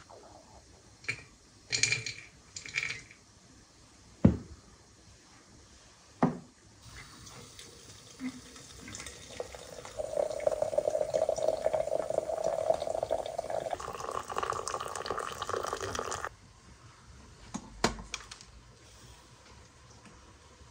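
Liquid poured steadily into a container for several seconds. Its pitch rises as the vessel fills, and it stops abruptly. A few sharp knocks and clatters come before the pour and one after it.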